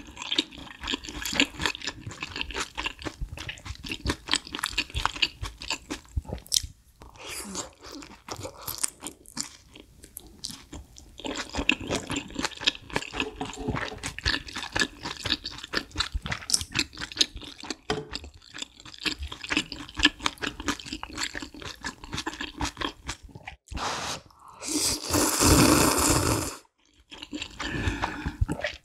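Close-miked chewing of dumplings and noodles: a steady run of wet clicks and smacks. Near the end comes a loud slurp of broth from the bowl, lasting about a second and a half.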